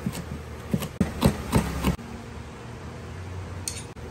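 Cleaver blade chopping through vegetables onto a wooden cutting board: about six quick knocks in the first two seconds, then a steady low hum with one light cut near the end.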